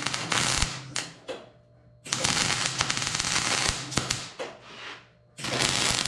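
MIG welding arc crackling and sizzling on a steel pipe, in three runs: the first stops about a second in, the second runs from about two seconds to nearly five, and the third starts near the end.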